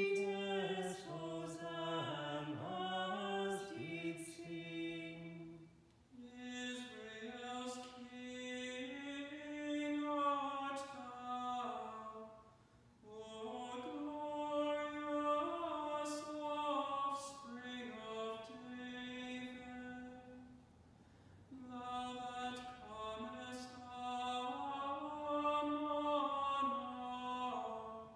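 Unaccompanied voices singing a slow chant melody, mostly in unison, in four long phrases with brief pauses between them.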